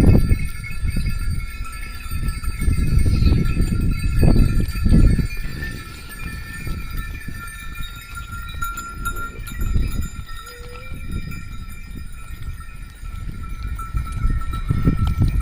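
Bells on a grazing flock of sheep and goats ringing continuously in several steady tones, under a low rumble that swells and fades several times.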